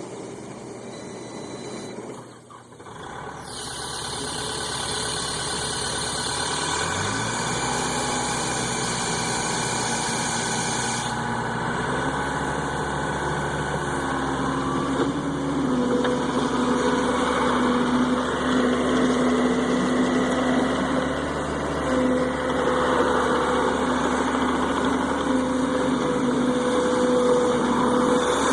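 Diesel engine of a Case 445CT track skid steer loader starting up and running. Its speed rises about seven seconds in and steps up again twice a few seconds later, then holds steady.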